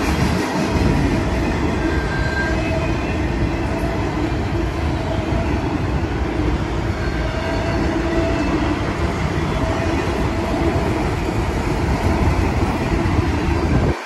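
Freight train of autorack cars rolling steadily past, its wheels running on the rails.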